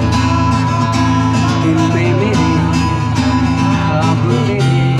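Acoustic guitar music, strummed in a steady rhythm over sustained bass notes.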